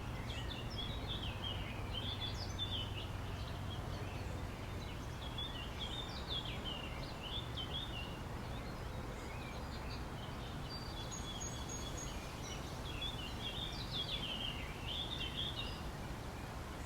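Outdoor park ambience: small birds chirping in scattered runs over a steady low rumble, with a brief thin high whistle about two-thirds of the way through.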